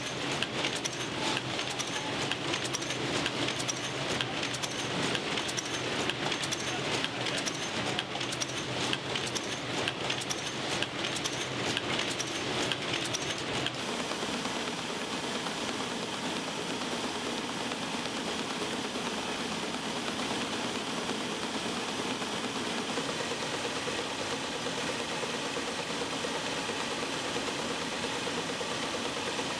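Match factory machinery running: a match-production machine clattering fast and densely. About halfway through it gives way to a matchbox machine running with a smoother, even mechanical noise.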